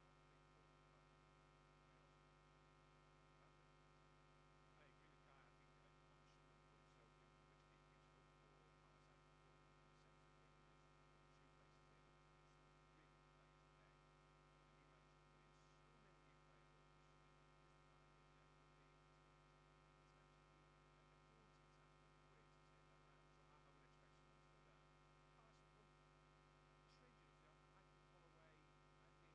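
Near silence with a faint, steady electrical mains hum: the broadcast's sound feed has dropped out.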